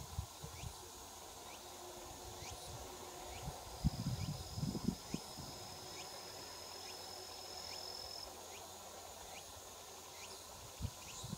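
Quiet field ambience of insects: a faint steady high hum, short chirps about once a second, and a thin high-pitched trill held for about four seconds in the middle. Bursts of low rumble near the start, around four seconds in and near the end.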